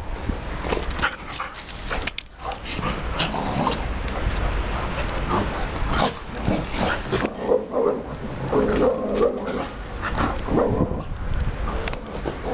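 Dog barking in short bursts, more often in the second half, over a low rumble and scattered clicks and knocks.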